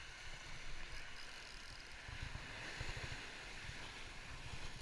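Seaside ambience: wind gusting on the microphone in uneven low rumbles over a steady hiss of sea surf.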